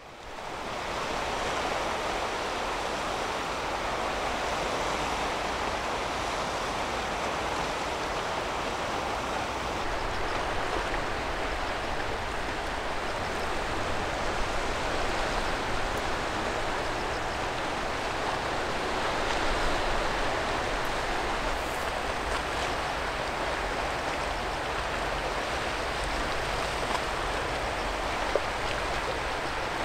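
Steady rushing coastal ambience of surf on a rocky shore, fading in from silence at the start.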